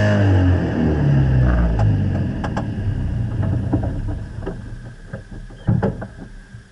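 Steyr-Puch Haflinger off-road vehicle's engine driving away, its revs dropping about a second in and its sound fading steadily. Scattered sharp clicks, and a louder knock near the end.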